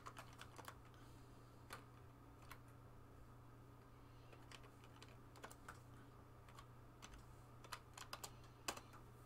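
Faint computer keyboard typing: scattered, irregular keystroke clicks, a few bunched together near the start and a quicker run near the end, over a low steady hum.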